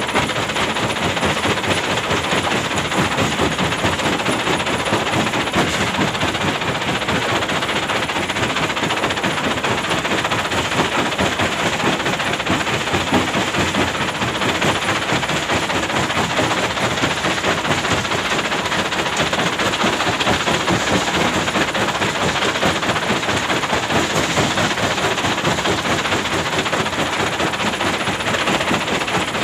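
Hyundai excavator's diesel engine running under load, a dense, steady clatter.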